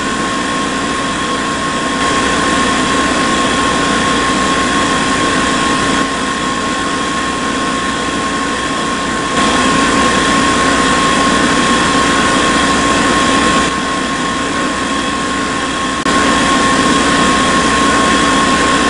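Small brushed DC motor on a toy borewell drilling rig running steadily with a high whine, its loudness stepping up and down several times.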